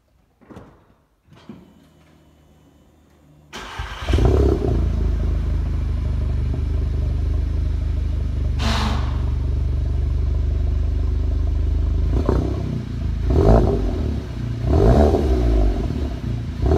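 2016 Audi A3 engine through a 2¾-inch cat-back straight-pipe exhaust with 3-inch Magnaflow tips. It starts about three and a half seconds in with a loud flare, then idles with a steady low drone. From about twelve seconds in it is revved in four short blips.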